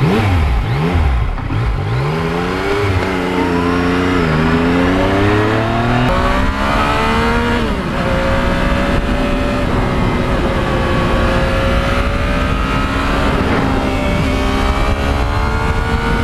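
Yamaha MT-09's three-cylinder engine accelerating through the gears, its pitch climbing and dropping back at each of several upshifts over the first eight seconds, then settling into a steady cruise.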